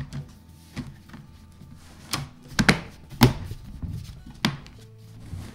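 Plastic bottom cover of a laptop being fitted and pressed back onto the chassis, its clips snapping into place: a series of sharp clicks and knocks, the loudest around the middle.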